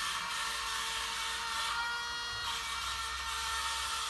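Air Hogs wall-climbing remote-control car's suction fan motor running with a steady high whine, holding the car to the wall as it drives.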